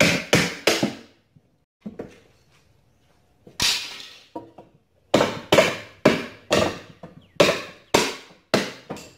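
Small hammer striking a wooden crate: three quick blows, a single blow a few seconds later, then a steady run of blows about two a second.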